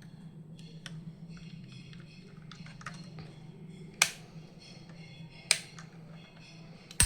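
A diecast toy car and its packaging being handled: light clicks and taps throughout, with two sharp clicks about four and five and a half seconds in and another near the end, over a steady low hum.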